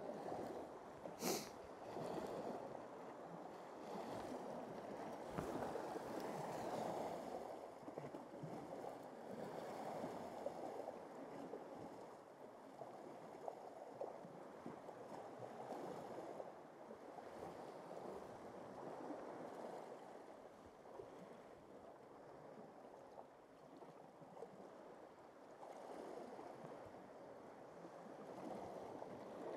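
Sea swell washing over rocks and kelp, rising and falling in slow surges, heard muffled through a jacket that the microphone is tucked into. One sharp click about a second in.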